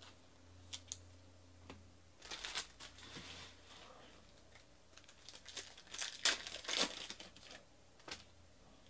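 Foil wrapper of a trading-card pack being torn open and crinkled by hand, in two spells of crackling of a second or more each, the second louder, with a few light clicks around them.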